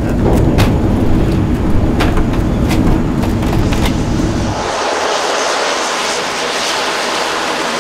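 Twin-turboprop airplane heard from inside the cockpit during landing: heavy engine and propeller noise with scattered rattles and knocks. About four and a half seconds in, the deep part drops away and a lighter, hissing turboprop sound carries on.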